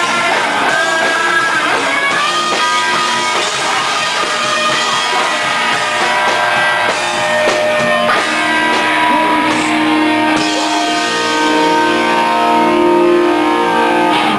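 Hardcore punk band playing live: electric guitars and drums, loud. From a little past halfway, the guitars hold long ringing notes.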